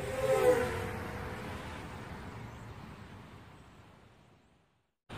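Intro sound effect: a swelling hit about half a second in with a few falling tones, then a long rumbling fade to silence over about four seconds.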